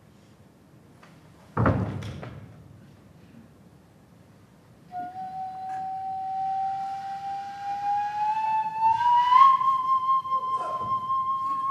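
A single sharp strike that rings out briefly, then a flute plays one long note that rises slowly in pitch and settles on a higher held tone.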